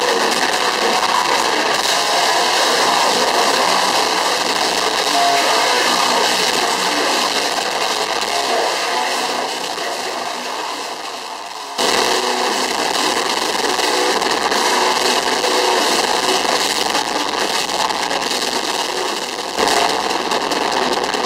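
A metalcore band playing live at full volume, heard as a harsh, dense wall of sound with almost no bass. The level sags a little, then snaps back suddenly about twelve seconds in and again near the end.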